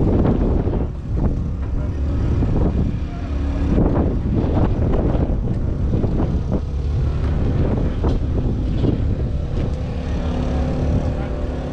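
Large diesel tractor engine running steadily, with wind rumbling on the microphone.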